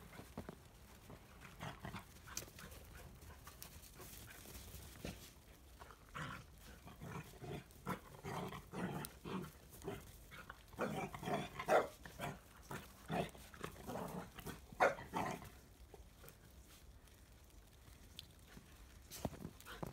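Labrador retriever puppy barking in a run of short yaps, loudest around the middle, with a couple more near the end.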